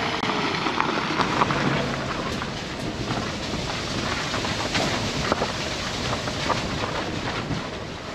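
Wind buffeting the microphone in wet weather, with scattered footsteps on a muddy dirt track.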